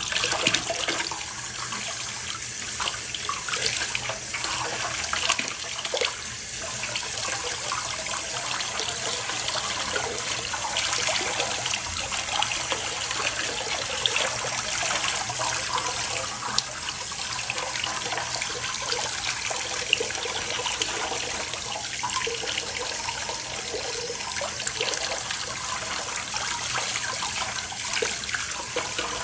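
Tap water pouring steadily into a basin of water, with continual small splashes as a baby monkey is held and rinsed under the stream.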